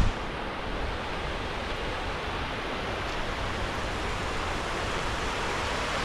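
Sea surf on a beach: a steady, even rush of waves.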